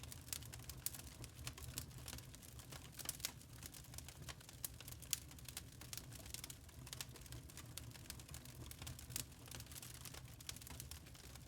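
Log fire crackling in a fireplace: irregular sharp pops and snaps over a low steady rumble, with one louder pop about five seconds in.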